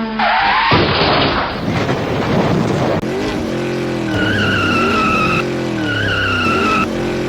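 A car engine revving hard with tyres skidding, and two long wavering tyre squeals in the second half.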